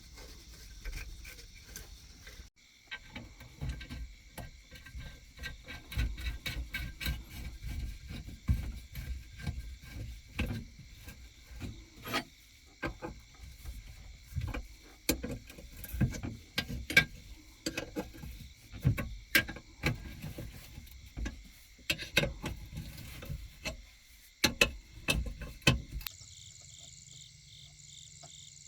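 Irregular knocking, clicking and rubbing of repair work with tools on machine parts, over a steady high-pitched drone. The background changes abruptly about two and a half seconds in and again near the end.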